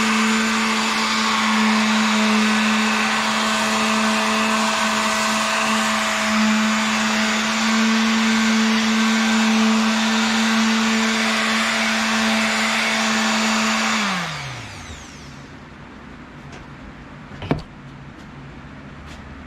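Small electric detail sander (WEN) running steadily with a hum, sanding a wooden tool handle with 220-grit paper. About fourteen seconds in it is switched off and the motor winds down, falling in pitch; a single sharp knock follows near the end.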